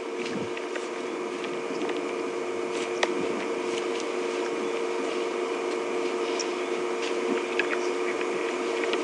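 Nyala chewing tortoise shell: scattered sharp crunches and cracks over a steady low hum.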